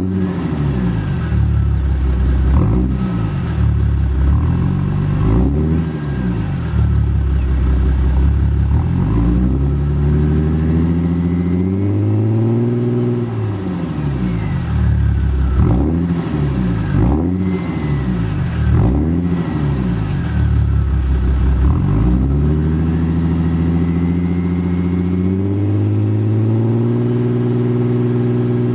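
Audi 3.0 TDI V6 diesel engine being revved in repeated blips that rise and fall, with a longer climb in the middle, then held at a steady raised speed for the last few seconds.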